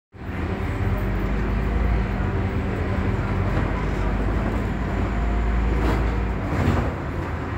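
Scania Omnidekka double-decker bus running along the road, heard from the upper deck: a steady low engine drone with cabin noise, and a couple of rattles near six seconds, after which the deepest part of the drone eases a little.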